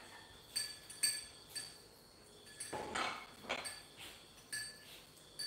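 Cutlery and plates clinking on a counter: a string of about eight light, ringing clinks at irregular intervals.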